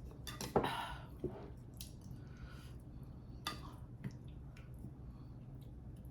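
Close-miked mouth sounds of eating soft mung bean porridge: quiet wet squishing and swallowing, with a few short sharp clicks.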